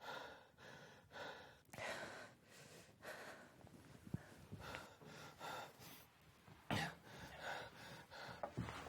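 A person sobbing quietly: faint, shaky breaths and gasps coming every second or so, with a louder gasp about seven seconds in.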